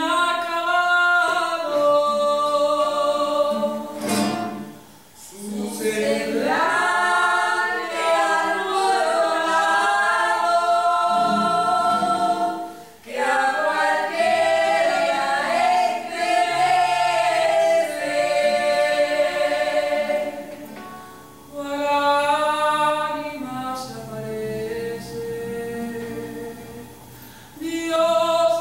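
A choir of several voices singing in harmony on long held notes, breaking off briefly between phrases.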